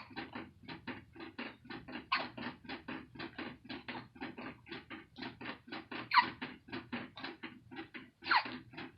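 Baby hiccupping: three sharp hics about two seconds apart, the loudest in the middle. Under them runs a fast, even patter of soft clicks, about three to four a second.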